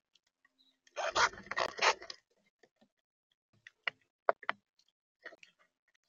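An animal at a bird feeder: a burst of rustling and crunching lasting about a second, then a few sharp, separate taps on the feeder.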